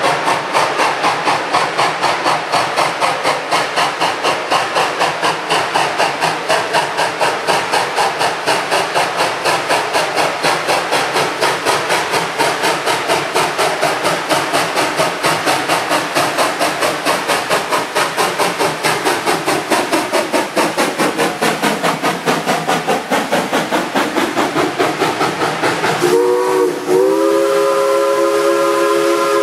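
Narrow-gauge steam locomotive exhaust chuffing in a fast, steady beat as it approaches and passes. About 26 seconds in, its steam whistle sounds a long chord of several notes at once.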